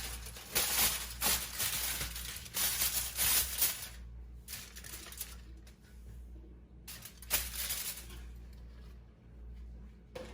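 Aluminium foil crinkling and rustling as it is handled, loudest in the first few seconds, with another short burst about seven seconds in.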